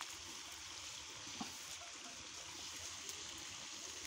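Faint, steady trickle of running water, with one light knock about a second and a half in.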